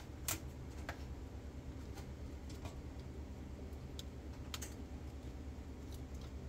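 Scattered small clicks and taps of a tweezer tip and plastic and metal clips as a Pioneer double-DIN car stereo's casing and front panel are pried apart, the sharpest click near the start, over a steady low hum.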